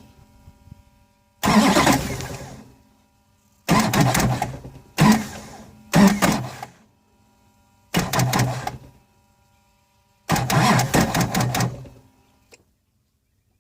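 2006 Duramax LBZ 6.6-litre V8 turbodiesel cranked on its starter in about six short bursts, each cutting out after a second or so and then starting again, cranking slowly without the engine catching. A faint click near the end.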